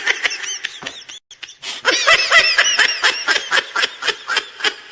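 Rapid, high-pitched laughter, a comic laugh sound effect, in quick pulses several a second, with a brief pause about a second in.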